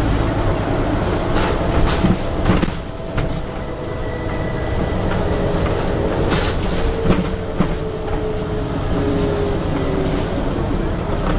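Interior ride sound of a Scania N94UB double-decker bus: the diesel engine and drivetrain run steadily, with sharp knocks and rattles from the body and fittings about two to three seconds in and again around seven seconds. A whining tone falls slowly in pitch between about six and ten seconds in.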